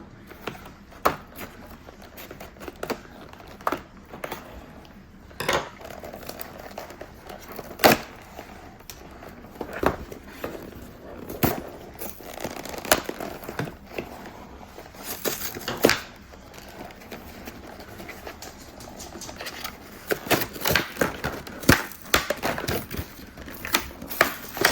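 Mystery toy packaging being handled and torn open: crinkling and tearing, with many sharp clicks and taps scattered throughout.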